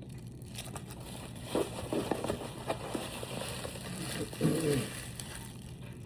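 Packaging crinkling and rustling as it is handled and opened, with a few light clicks and knocks.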